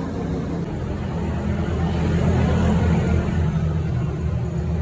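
A machine running steadily with a low drone, loud throughout.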